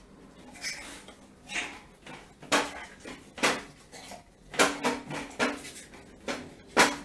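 Hard plastic knocks and clatters as a dog noses and mouths at the hopper of an iFetch automatic ball launcher, about eight sharp knocks roughly a second apart, the loudest near the end.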